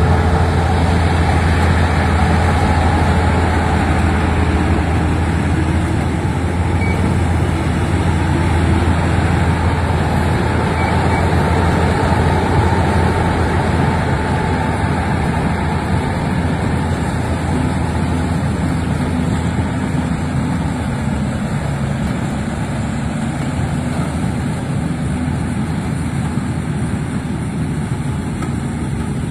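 Lovol combine harvester running steadily as it harvests rice, its engine and threshing machinery giving a continuous low hum. The sound grows fainter over the last third as the machine moves off.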